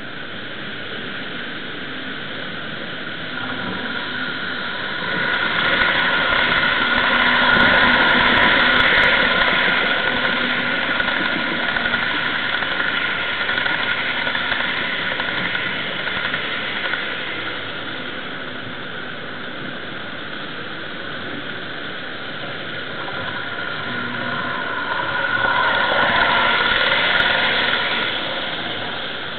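HO-scale model trains running past on the layout's track: a steady whirring of motors and wheels on the rails, swelling louder twice, about six seconds in and again near the end.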